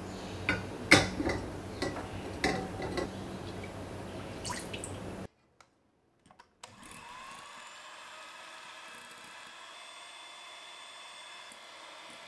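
A glass bowl clinking and tapping several times against a stainless steel saucepan set over water. After a short break, an electric hand mixer's beaters start up, rising in pitch, and then run steadily, whipping an egg mixture.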